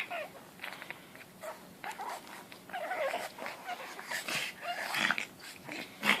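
Two pug puppies playing, making short, cat-like, wavering vocal cries and noises in irregular bursts.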